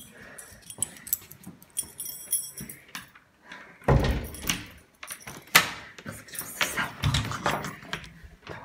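Irregular knocks, clicks and clatter of things being handled, with a brief metallic jingle about two seconds in and louder thumps about four, five and a half and seven seconds in.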